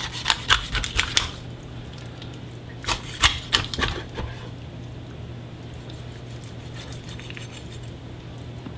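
Large kitchen knife cutting the backbone out of a raw whole chicken: quick runs of crisp crunches and clicks as the blade snaps through the rib bones and knocks on the plastic cutting board, once in the first second and again around three to four seconds in.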